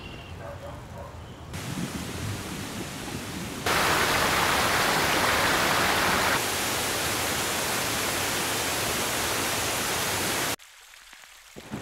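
Waterfall: a steady rush of falling water. It comes in strongly a few seconds in and cuts off suddenly near the end.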